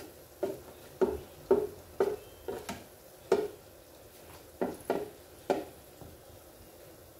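Perforated skimmer knocking against the wire basket of an electric deep fryer while frying dough balls (mikate) are turned in the oil. There are about ten sharp knocks at roughly two a second, and they stop about five and a half seconds in.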